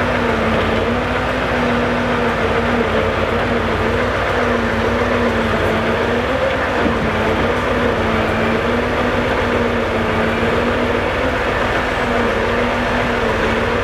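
Scania R650 V8 timber truck running steadily to drive its hydraulic timber crane. It is a continuous engine and pump hum whose pitch rises and dips slightly as the crane works the logs.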